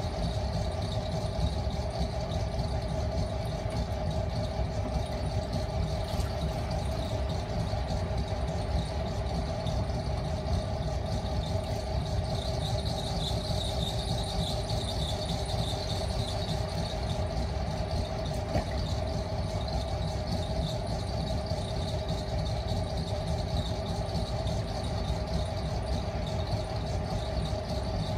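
Potter's wheel running steadily with a low rumble and a continuous high squeal from its drive, the squeal a little louder around the middle, as clay is thrown on it.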